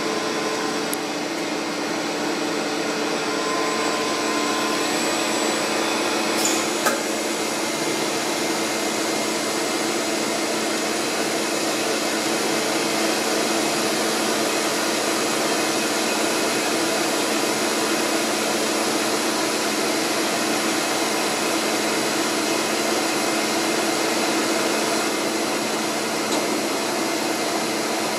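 Hurco BMC 30 HT vertical machining center running under power: a steady electric whir with a low hum, and a short click about seven seconds in.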